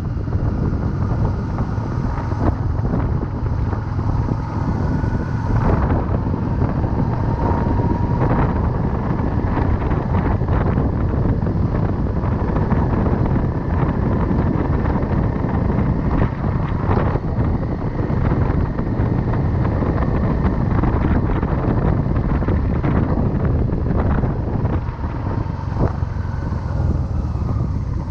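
Motorcycle riding along with its engine running steadily under heavy wind buffeting on a chest-mounted camera's microphone.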